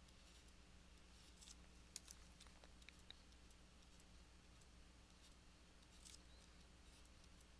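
Near silence: a low steady hum with a few faint, scattered clicks of a stylus tapping on a drawing tablet.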